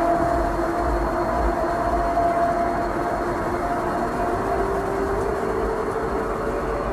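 A loud, steady droning hum over a rumble, with two drawn-out tones that slowly drift in pitch; the lower tone rises about two-thirds of the way through. It is the kind of recording circulated as a mysterious sound from the sky.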